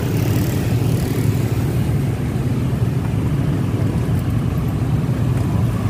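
Motor-scooter and motorcycle traffic running close around a moving bicycle, a steady low rumble with no single event standing out.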